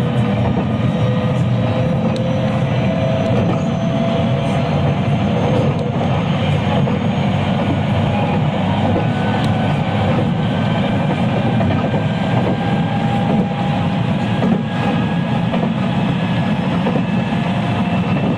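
Running sound inside a 223 series electric multiple unit motor car (KuMoHa 223-3016): the traction motors whine, slowly rising in pitch as the train gathers speed, over a steady rumble of wheels on rail.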